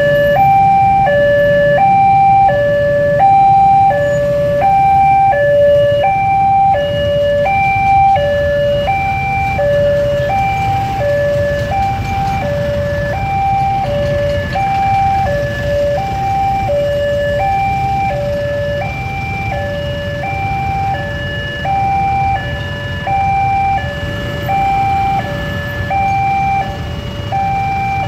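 Railway level-crossing warning alarm sounding, steadily alternating between a higher and a lower tone at about one high-low cycle a second. Under it is the low rumble of idling motorcycle engines queued at the lowered barrier.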